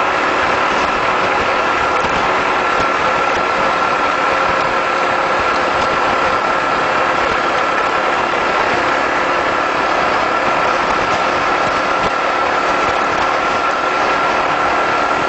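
250cc Honda motorcycle engine running at a steady cruise on a bumpy dirt road, mixed with wind and road noise, with a steady high whine over it.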